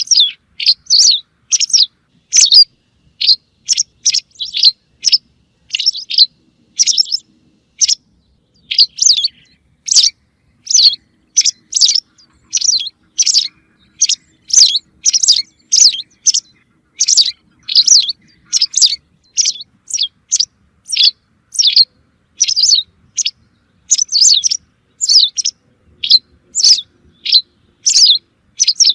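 Recorded songbird calls played as a hunting lure: short, sharp, high chirps repeated over and over, about two a second.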